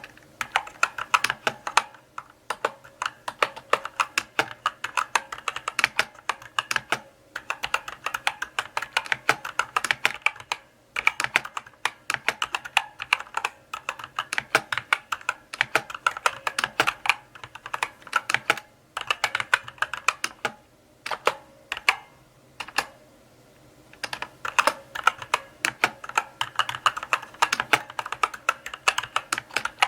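Mechanical keyboard being typed on: runs of key clicks and clacks, broken by brief pauses, the longest lasting about two seconds around three-quarters of the way through.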